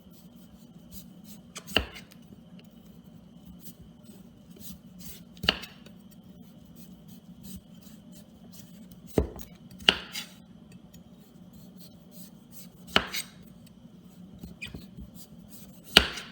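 A kitchen knife cutting through a butternut squash, the blade knocking down onto the board in sharp single knocks every three to four seconds, two of them close together near the middle, over a steady low hum.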